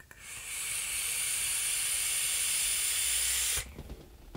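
Rashomon rebuildable dripping atomiser with dual flattened Clapton coils, fired at 77.7 watts during a long draw: a loud, steady hiss of the coils vaporising juice and air rushing through the deck. It cuts off suddenly about three and a half seconds in.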